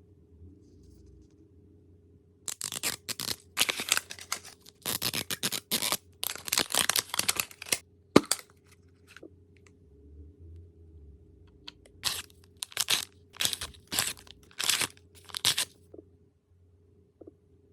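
Small plastic packaging rustled and torn open in quick bursts, with a sharp click about eight seconds in.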